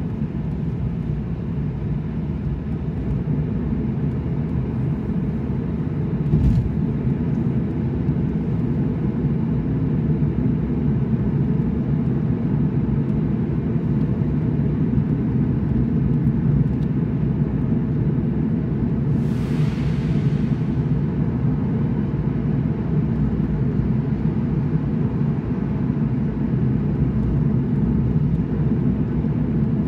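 A car driving along a city road: a steady low rumble of engine and tyre noise. There is a short knock about six seconds in and a brief rushing hiss about twenty seconds in.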